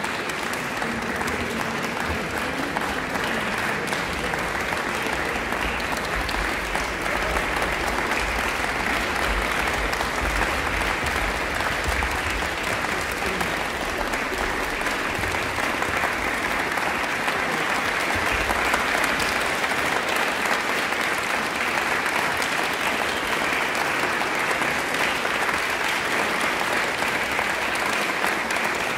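Audience applauding steadily, a dense unbroken clapping that grows a little louder after the first few seconds.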